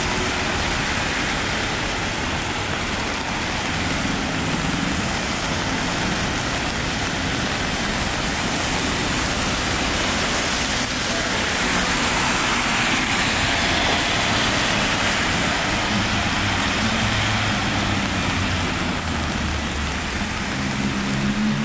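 Road traffic on a wet road: tyres hiss on the wet surface as cars pass, with one vehicle swelling past about halfway through and a deeper engine note coming in near the end.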